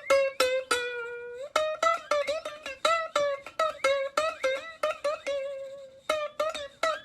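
Background music: a plucked ukulele-like string instrument playing a quick run of notes.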